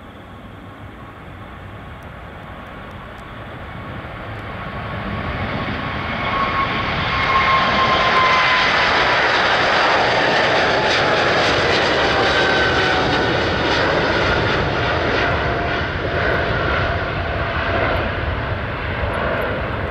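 Boeing 777-300ER's two GE90-115B turbofans at takeoff thrust, growing louder as the jet rolls down the runway and lifts off. From about eight seconds in the sound is loud and steady, with the engine whine gliding down in pitch as the plane passes and climbs away.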